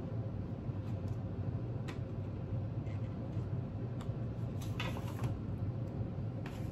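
Soft rustles and light clicks from a paper burger clamshell box being handled, a few times, over a steady low background hum.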